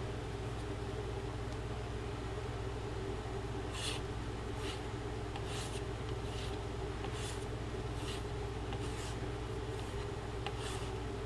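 Carbon steel knife blade drawn along a strop loaded with chromium oxide compound: short scratchy strokes, about one every 0.8 s, starting about four seconds in, over a steady low hum.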